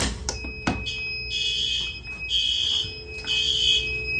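Fire alarm system going into alarm on a pull-station test: a few clicks at the start, then the alarm sounder blasts three times about a second apart, pauses, and starts again, the temporal-three evacuation pattern. A steady high beep runs underneath.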